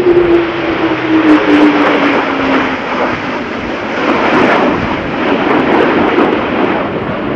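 Airbus A400M tanker flying past in formation with two Panavia Tornado jets: a steady roar of turboprop and jet engines, with a strong hum that falls in pitch over the first few seconds as the aircraft pass.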